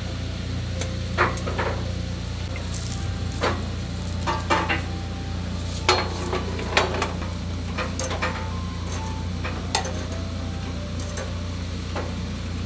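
Eel fillets sizzling on a wire grill rack over a steady low hum. Sharp metal clinks of tongs against the rack come several times, the loudest around one, six and seven seconds in.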